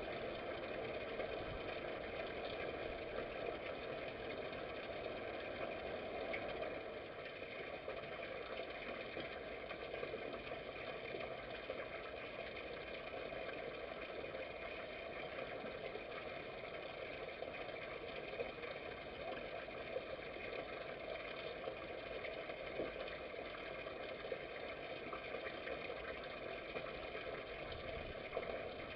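Steady mechanical hum with several fixed tones, dipping slightly about seven seconds in.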